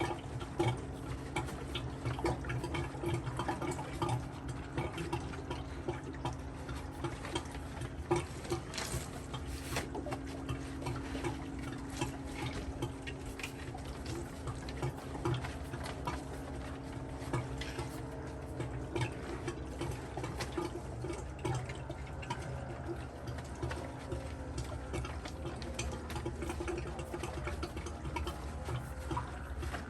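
Water splashing and trickling inside an opened pool cartridge filter tank as its parts are worked loose, with scattered knocks and clatter over a steady low hum.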